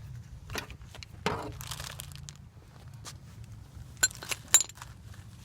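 Scattered handling knocks and rattles of metal tools or parts, with three sharp, ringing metallic clinks about four seconds in.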